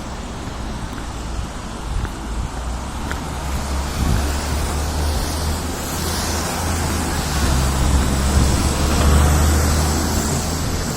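Road traffic mixed with wind buffeting the microphone: a steady low rumble that swells a little after the middle.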